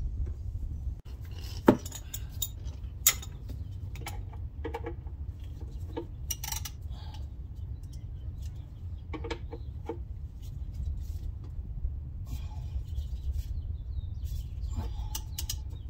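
Irregular metal clinks and knocks of a wrench and socket being fitted and worked on the oil drain plug under a pickup, with two sharper knocks about 2 and 3 seconds in, over a steady low rumble.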